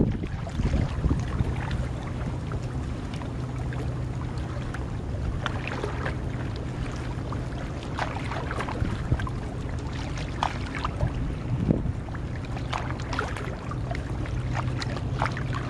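Water sloshing and splashing with short sharp splashes as a large inflatable vinyl pool float is pushed and folded in shallow water, over wind on the microphone and a steady low hum.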